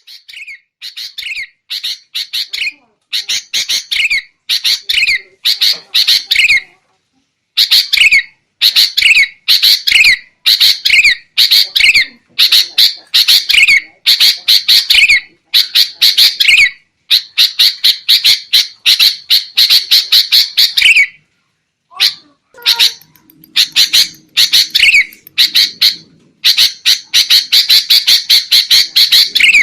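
Sooty-headed bulbul (kutilang) calling noisily: quick bursts of chattering notes about once a second, each ending in a falling slur, with a short break a little past the two-thirds mark. This is the excited, agitated calling that is played to lure bulbuls into traps.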